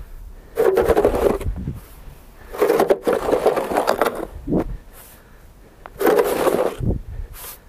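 A snow shovel pushed along paved ground, scraping through the snow in three long strokes, with a few dull thuds in between.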